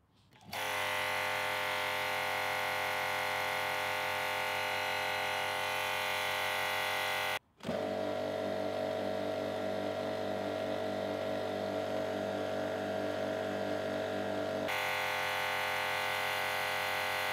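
Kranzle K10/122 TS electric pressure washer with a brass pump, running steadily with a higher-pitched sound. After a brief break about seven seconds in, a Karcher K4 pressure washer runs with a lower pitch, and about fifteen seconds in the Kranzle is heard again.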